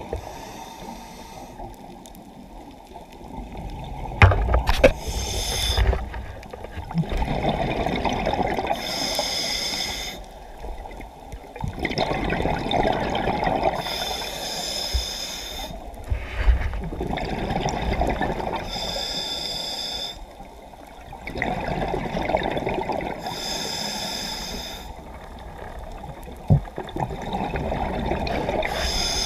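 A scuba diver breathing underwater through a regulator: a hiss on each inhale and a burst of bubbles on each exhale, repeating about every five seconds. A few sharp knocks sound about four seconds in.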